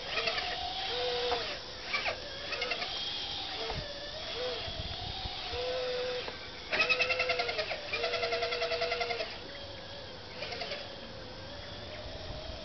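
Radio-controlled model Cat D6 bulldozer running over loose dirt: its drive makes a whine that wavers up and down in pitch as it moves and turns. Between about seven and nine seconds in, a louder, rapid buzzing rattle joins it.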